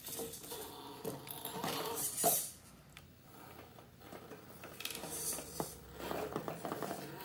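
A 1/10-scale RC rock crawler's brushed motor and steel-geared drivetrain whirring in short, stop-start spells as it crawls slowly, with clicks and knocks of tyres and chassis against wooden blocks. It goes quieter for a couple of seconds in the middle.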